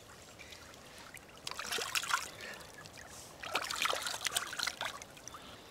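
Wooden spoons being rinsed by hand in a shallow, spring-fed trickle of running water: small irregular splashes and sloshing in two spells, about a second and a half in and again from about three and a half seconds, over the faint trickle of the water.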